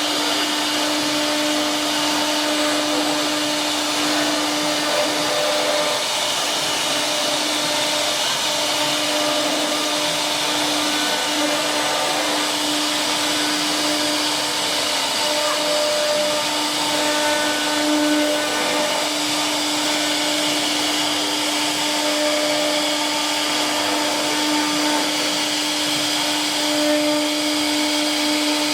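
An electric motor running steadily, a constant hum over a hiss that does not change in pitch or level.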